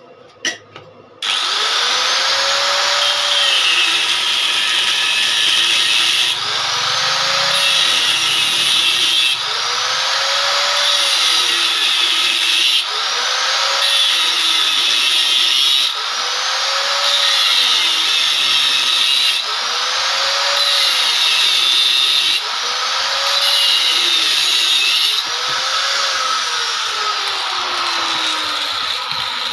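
Angle grinder with an abrasive disc cutting into the steel of a broken oil-palm harvesting sickle. It starts about a second in and runs loud, its pitch sagging and recovering every few seconds as the disc bites into the metal and eases off.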